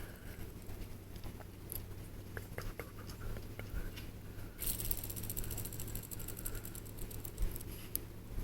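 Fidget spinner being handled with a few light clicks, then spun about halfway through, giving a fast, high, rattling whir that dies away over a few seconds. A steady low hum sits underneath throughout.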